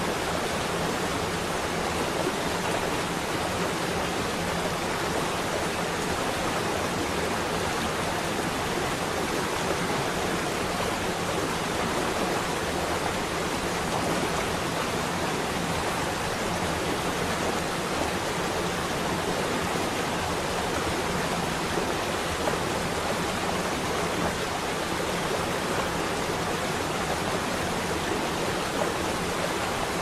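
Waterfall: water pouring and rushing, a steady even roar of falling water with no breaks.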